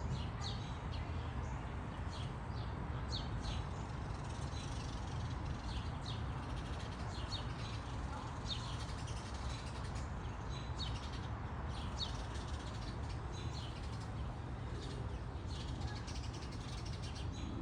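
Birds calling: short high chirps that drop in pitch, repeated every second or so, over a steady low rumble.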